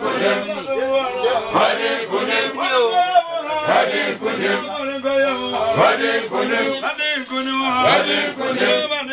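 Voices chanting a song, with a sharp accent falling roughly every two seconds.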